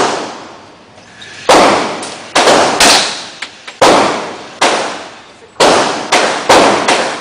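Gunshots at a shooting range: about eight shots in irregular succession, each with a long echoing decay.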